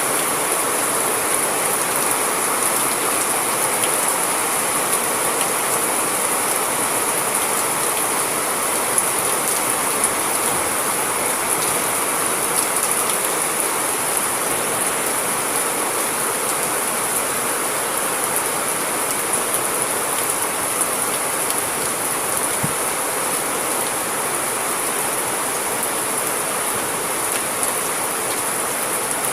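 Steady heavy rain, an even hiss with scattered drop ticks and no thunder.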